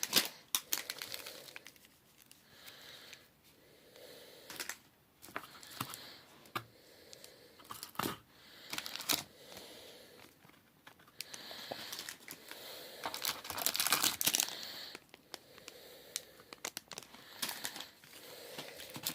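Slime kit contents handled close to the microphone: irregular crinkling and crackling with scattered clicks, busiest about two-thirds of the way through.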